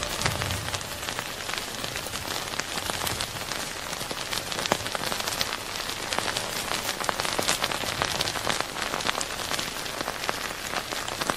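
Lava flow crackling and hissing: a steady hiss studded with many small, irregular sharp crackles.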